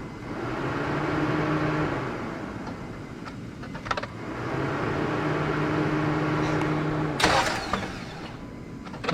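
Vehicle engine hum, swelling and fading twice at a steady pitch for a couple of seconds each, with a few clicks between and a short loud noisy burst near the end.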